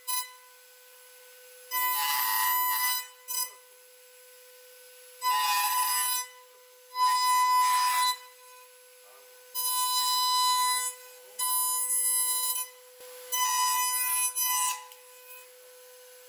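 Router spindle on a dovetail jig whining steadily, with about six loud bursts of about a second each as the bit plunges into the end of a wooden board and cuts the dovetails.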